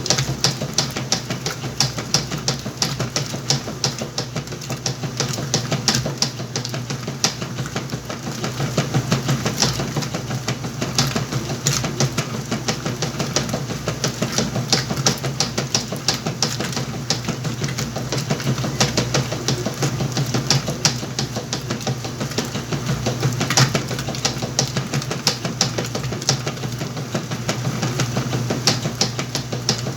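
Whirlpool washing machine running a wash cycle: a steady motor hum with rapid, irregular clicking and knocking throughout.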